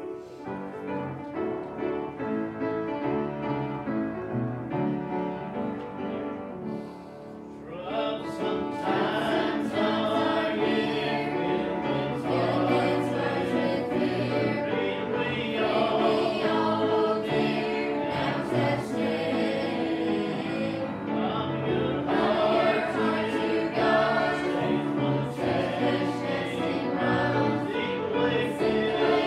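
A choir singing gospel music. The sound starts suddenly, stays softer for the first several seconds, then swells into fuller, louder singing about eight seconds in.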